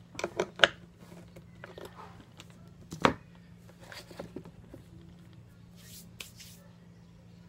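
Handling noise from a desk fan's motor assembly and plastic stand being worked with a screwdriver: a quick cluster of sharp clicks and knocks in the first second, one louder knock about three seconds in, and a few softer taps and rustles later, over a steady low hum.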